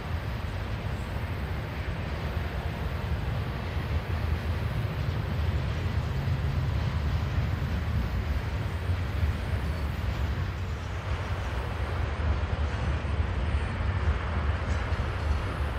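Low, steady rumble of a diesel freight locomotive's engine as it hauls its train past, growing slightly louder toward the end.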